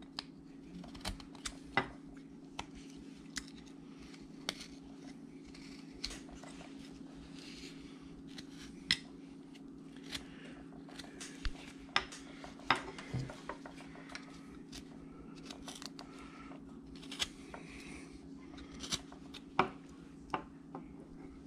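Carving knife slicing chips from a wooden dog carving: sharp, irregular snicks every second or so, over a faint steady low hum.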